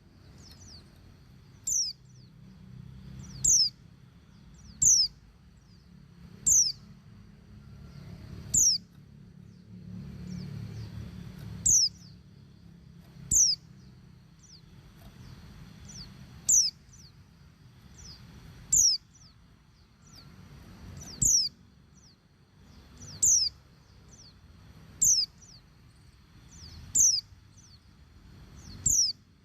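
Female white-eye (pleci) giving its call: short, high chirps that sweep downward, repeated about every one and a half to two seconds. This is the female's call to males, used to get males to sing.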